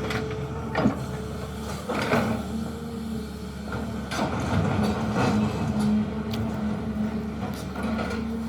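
Diesel engine of a SANY excavator running under load, its note growing stronger about two seconds in, with a few sharp knocks and clunks from the working machinery.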